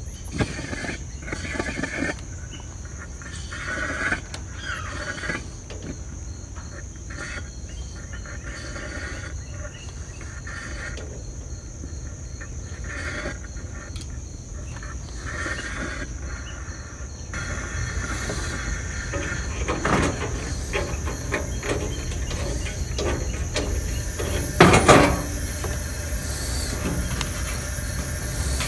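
Coleman 413G liquid-fuel camp stove being lit: the burner catches and hisses, and a steady rush of flame grows louder from a little past halfway as the flame flares up tall and yellow while the generator is still cold. Scattered clicks and squeaks come from the fuel valve and tank being handled, with a couple of sharp knocks near the end.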